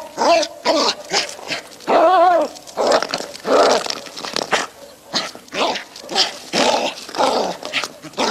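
A dog barking and yipping in a rapid run of short calls, about two a second, with a higher rising-and-falling yelp about two seconds in.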